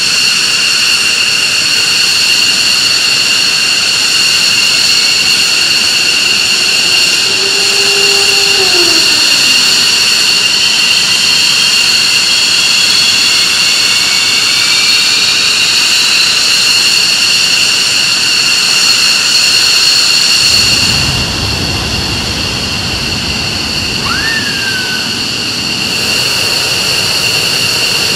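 F-15C Eagle jet engines (Pratt & Whitney F100 turbofans) running at ground idle after start-up, a loud, steady high-pitched whine. A fainter tone rises slowly in pitch midway through, and a low rumble joins about two-thirds of the way in.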